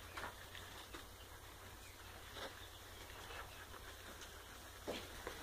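Faint rustling with a few soft, scattered taps, as a sheep steps about on straw bedding.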